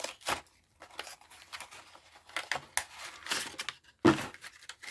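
Crinkling and tearing of Pokémon card packaging, foil and plastic wrappers being handled and torn in a series of short rustles, with a sharper crackle near the end.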